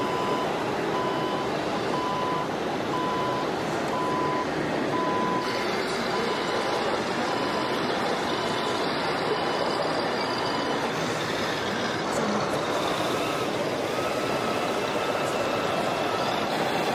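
Reversing warning beeper of an RC model truck, sounding a steady pitched beep about once a second over a steady noisy background, then stopping about eleven seconds in.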